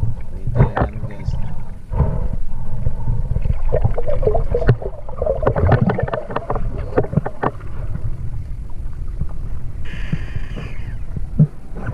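Muffled underwater sound from a camera held under the sea during a dive: a steady low rumble of water against the housing, with scattered clicks and bubbly crackling that thicken in the middle. A brief higher whine comes near the end.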